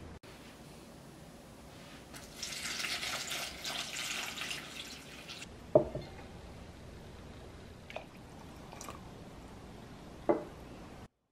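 Water poured into a bowl to soak dried zucchini slices, splashing for about three seconds. Then a sharp knock as a glass pitcher is set down on the table, and another knock near the end.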